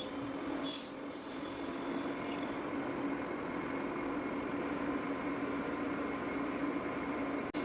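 Lathe running steadily, a constant machine hum, while it turns a stainless steel pump shaft. A high thin whine comes and goes in the first couple of seconds.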